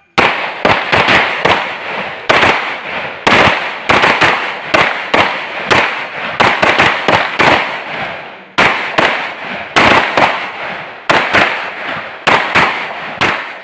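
Several pistols fired in quick, irregular succession by a line of shooters, about thirty shots in all, each a sharp crack with a short echoing tail.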